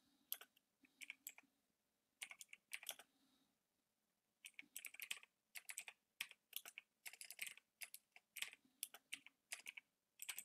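Faint typing on a computer keyboard: short clusters of key clicks at first, a pause of about a second, then a steadier run of keystrokes from about four seconds in.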